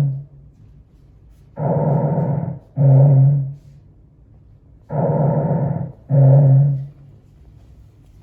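Breath sounds heard through a stethoscope on a person's back: two slow, even breaths, each a longer rushing inhale followed by a shorter exhale that carries a low droning tone.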